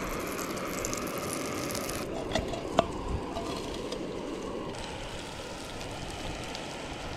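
Butter sizzling and crackling in a hot frying pan on a portable gas stove, with breadcrumbed fish chunks tipped in and frying about halfway through. Two sharp clicks come near the middle.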